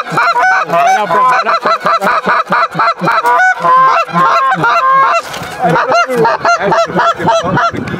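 A large flock of geese calling, with many honks overlapping in a constant clamour.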